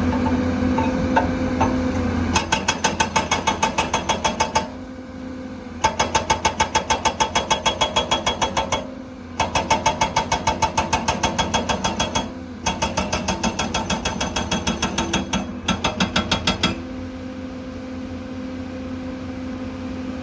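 Excavator's hydraulic rock breaker hammering in four runs of rapid, even blows, about eight a second, each run lasting a few seconds, over the excavator's steady engine. Between the runs and near the end only the engine is heard.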